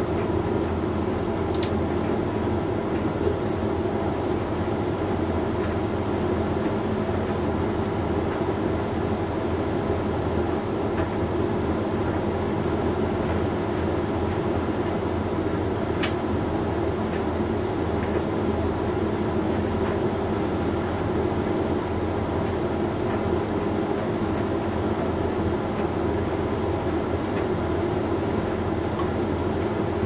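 Hoover Link X Care condenser dryer running mid-way through a Rapid 45 drying cycle: a steady hum and rumble from the turning drum, motor and fan, with a few faint clicks.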